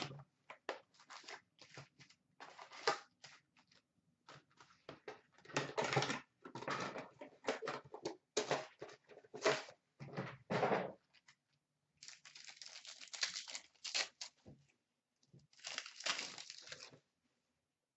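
A Panini Certified hockey card box and its packs being opened by hand: cardboard and pack wrappers tearing and crinkling in irregular bursts, with longer stretches of rustling near the end.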